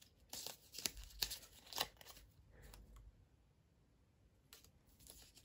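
Handwritten paper flashcards being handled and swapped: a quick run of rustles and flicks of card in the first two seconds, then fainter rustling near the end.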